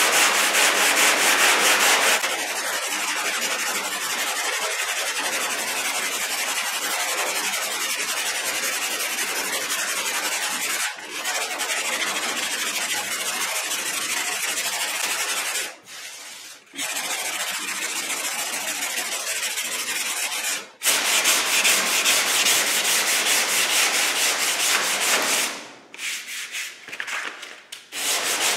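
Hand block-sanding of cured Evercoat aluminum-filled body filler with 100-grit paper on a DuraBlock, knocking the filler down on a steel car body. The strokes are fast and even at first and again later, with two short pauses.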